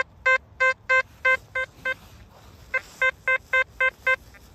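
XP ORX metal detector sounding its target tone, a quick run of identical beeps about three a second as the coil passes back and forth over a target. The beeps pause for about a second a couple of seconds in, then start again. The target reads in the range where hammered coins fall.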